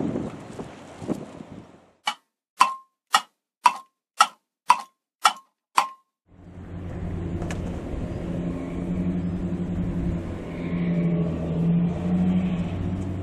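Wind on the waterfront fades out, then eight sharp ticks, about two a second, sound over otherwise total silence: a clock-tick sound effect marking time passing. A steady low engine hum with wind comes back about six seconds in.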